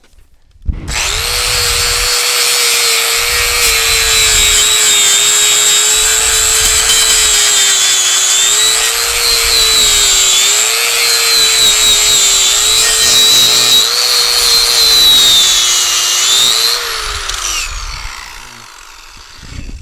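Angle grinder working steel: the motor starts up about a second in and runs for about sixteen seconds, its whine dipping and recovering as the disc is pressed into the metal, then winds down near the end.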